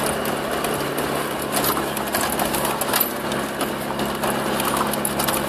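Land Rover Discovery TDi turbo-diesel engine running, heard from inside the cab, with the body and cabin rattling and knocking unevenly as the vehicle bounces over rough ground.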